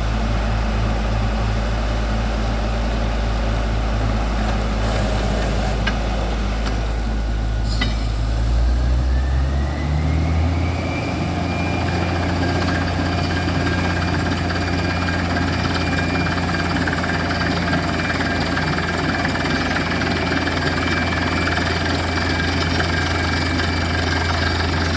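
Borewell drilling rig's engine running steadily with a low drone. About eight seconds in it speeds up with a rising whine, then holds at the higher speed.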